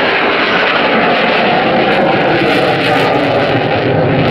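Twin General Electric F404 turbofans of a McDonnell Douglas EF-18A Hornet jet fighter, a loud steady jet roar as the fighter manoeuvres overhead.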